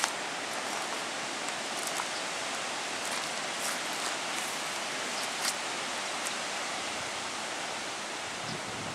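Wind through riverside trees and grass: a steady, even hiss, with a few faint ticks in the middle.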